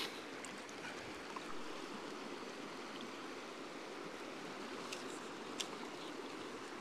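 Steady rush of a trout stream's water running over a riffle. There are a couple of faint clicks about five seconds in.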